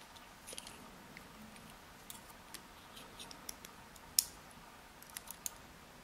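Small, faint metallic clicks and taps of steel tweezers against the cylinder of an Abus EC750 dimple lock and its tiny pins, as the driver pins are picked out. The clicks come irregularly, one sharper than the rest a little past the middle.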